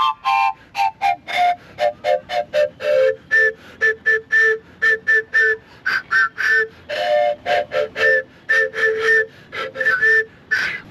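A flute played in short, separately tongued notes, several a second. A run steps down in pitch, then the notes hop back and forth between a high note and a low one.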